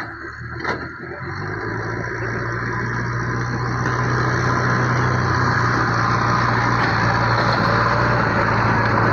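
A motor vehicle's engine running at a steady pitch. It grows louder over the first few seconds, then holds steady.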